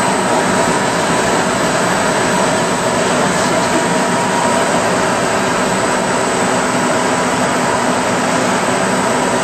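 Vertical double disc grinder running: a steady, unchanging machine drone with a few faint held tones.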